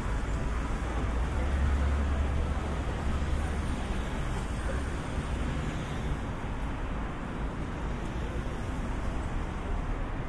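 City street traffic at an intersection: cars driving through, with a low engine rumble strongest about two seconds in.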